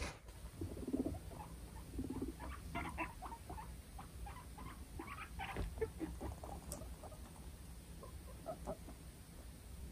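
Guinea pig giving a low, pulsing buzz of a rumble twice in the first two seconds: the dominance rumble of a fight over rank. It is followed by a run of short, irregular clicks through the middle and a few more near the end.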